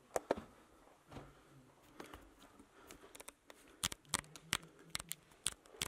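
Footsteps crunching on the sandy, gritty floor of a small rock cave: sparse at first, then a quicker run of sharp crunches in the second half.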